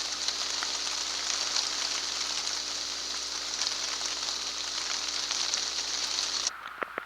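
Steady rain falling, an even dense hiss that cuts off abruptly near the end, leaving a few separate drips.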